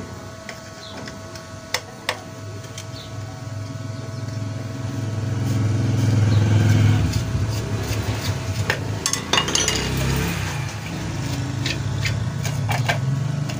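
Metal tools clinking and tapping on a water pump's metal casing and bolts while the casing is loosened and worked free: a few sharp clicks, then a cluster of clinks later. Under them a low rumble swells to its loudest about halfway through and then eases off.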